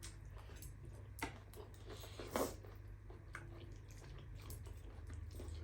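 Quiet eating of spicy instant noodles: soft chewing with a few short clicks and smacks, over a low steady hum.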